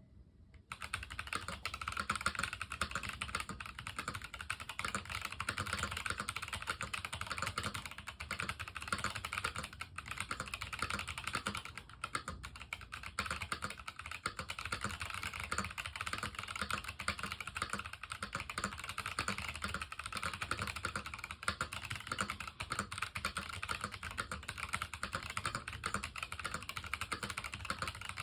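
Continuous fast typing on a NuPhy Halo65 mechanical keyboard with unlubed Boba U4T tactile switches and PBT keycaps. The key clicks start about a second in and run as a dense rapid patter, with a short lull midway.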